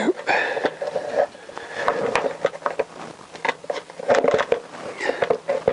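Wiring loom and its plastic connectors being handled and pushed through a motorcycle frame: wires rustling and rubbing, with irregular small clicks and knocks against the frame.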